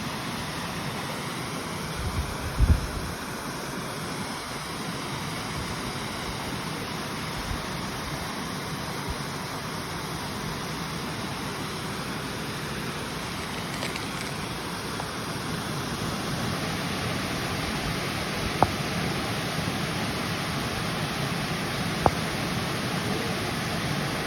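River water flowing steadily, an even rushing babble. A brief low thud comes about three seconds in, and two sharp clicks near the end.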